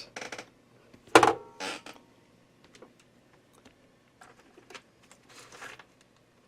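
Clicks and small knocks of a screwdriver working on a plastic boombox cabinet as its back screws are taken out, the loudest knock about a second in, with a short rustle of handling near the end.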